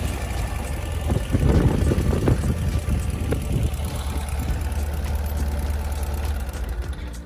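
Ural sidecar motorcycle's air-cooled flat-twin engine running, a steady low drone with rougher, louder stretches about a second in.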